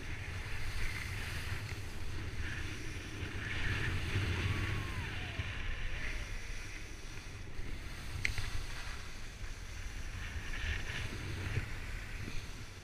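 Wind rushing over an action camera's microphone while skiing downhill, a steady low rumble, with the hiss of skis sliding on packed snow coming and going. A single sharp click comes a little past the middle.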